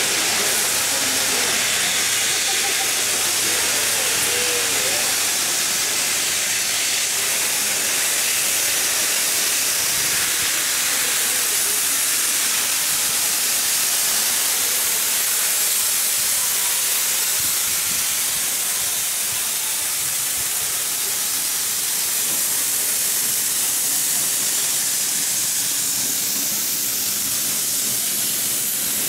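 Steam hissing steadily from the Garratt steam locomotive 6029, a constant high hiss with no exhaust beat.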